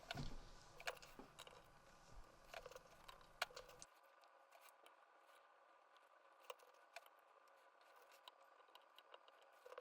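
Near silence with faint, scattered small clicks and snips: scissors cutting thermal pad material to size.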